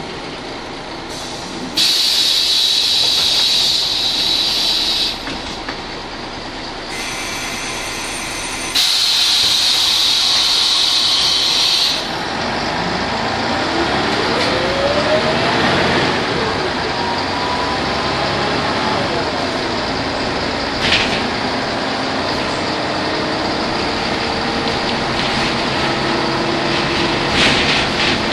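Ikarus 280 articulated bus with its Rába D10 six-cylinder diesel: two loud bursts of compressed-air hiss from the bus's air system, each about three seconds long. Then, about halfway through, the engine note climbs steadily as the bus pulls away through its ZF automatic gearbox, and it runs on evenly.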